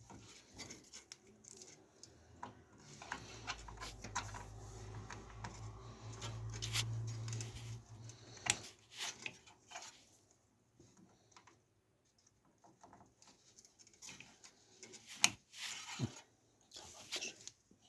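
Scattered clicks, taps and rustles of parts being handled during PC case assembly, with a low steady hum from about 3 to 8 seconds and a few sharper knocks near the end.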